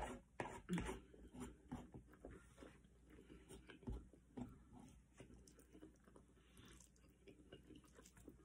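Soft eating sounds: chewing, with short clicks of a metal fork against the plate. The loudest clicks come in the first second, and another comes about four seconds in.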